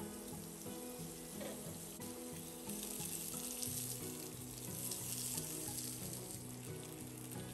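Bacon, curry leaves and sliced garlic sizzling in hot oil in a frying pan as they are sautéed with a silicone spatula; the sizzle grows louder about three seconds in. Background music plays underneath.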